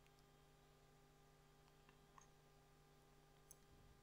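Near silence: room tone with a faint steady hum, and two very faint ticks about two and three and a half seconds in.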